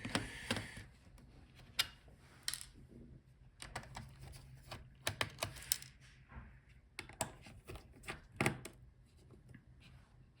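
Irregular light clicks and taps of a small screwdriver and tiny screws against a laptop's chassis as the cooling fan's screws are taken out.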